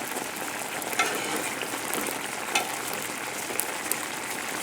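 Food sizzling in a hot pan, a steady crackling hiss, with a couple of sharp clicks about a second in and again partway through.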